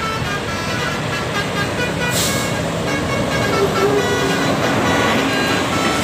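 Telolet bus horn (Basuri) playing its multi-note tune in short, repeated notes over traffic noise from passing heavy vehicles, with a brief hiss about two seconds in.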